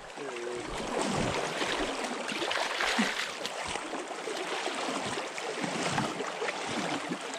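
Stream water flowing steadily, an even rushing of the current.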